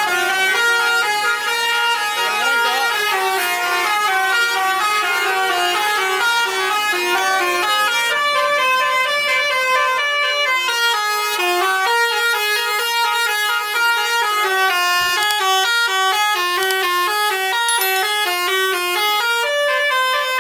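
Indonesian bus 'telolet' horn, a multi-tone musical air horn, playing a fast melody of short notes that step up and down in pitch without a break.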